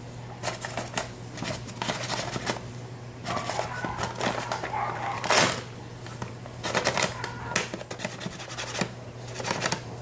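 Brown paper bag crinkling and rustling in repeated short bursts as a hand pushes and handles it, the loudest burst a little past the middle.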